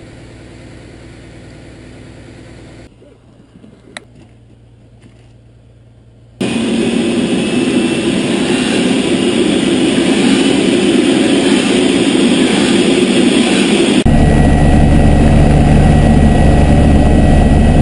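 Rescue helicopter's turbine engines and rotor running loud and steady, starting about six seconds in. About four seconds before the end it gets louder, with a deep beating from the rotor, heard from on board in flight. Before the helicopter comes in there are a few seconds of quieter low engine hum and a single click.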